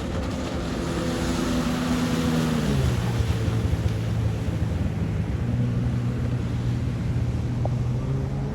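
Sea-Doo RX DI jet ski's two-stroke engine running on the water, with a rush of water and wind. The engine drops in pitch about three seconds in as the throttle comes off, holds at a lower speed, then starts to rise again near the end.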